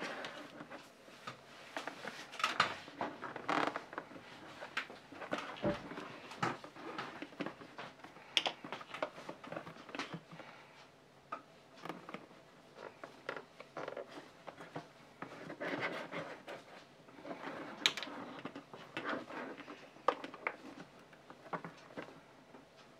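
Hands working leather and small tools on a workbench: irregular rubbing and rustling with scattered sharp clicks and taps.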